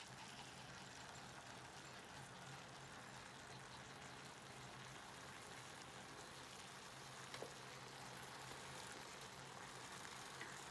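Food sizzling faintly on an electric hot plate: a steady quiet hiss, with one light click about seven seconds in.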